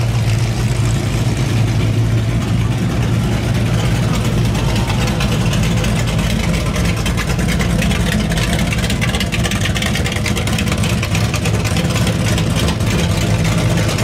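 Classic V8 muscle cars driving slowly past: first a steady low hum from a mid-1960s Pontiac, then a choppier, rapidly pulsing exhaust burble as a 1969 Chevelle SS with dual exhausts rolls by close.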